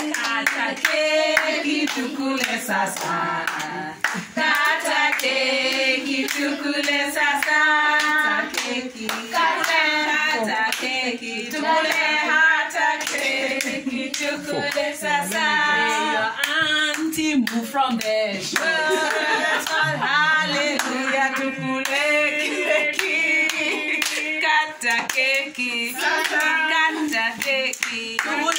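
A group of voices singing a birthday song together, with hand clapping along throughout.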